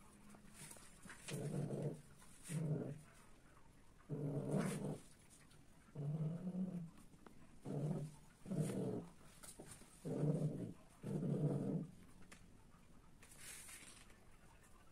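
Domestic cat giving a run of eight low, drawn-out growling moans, each under a second long, which stop about twelve seconds in. This is the calling of a cat in heat.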